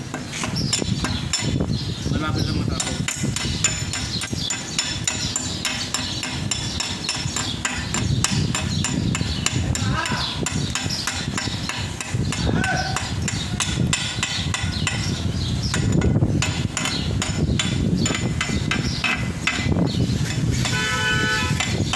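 Stick (arc) welding: the electrode's arc crackles and sputters steadily as it is run along a seam in heavy steel plate.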